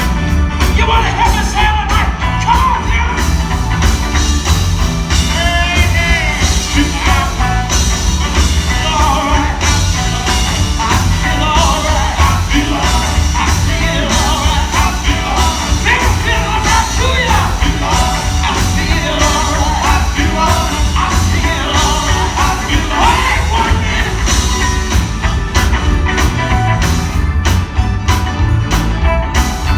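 Live gospel quartet music: sung vocals over a band, with a strong, steady bass underneath.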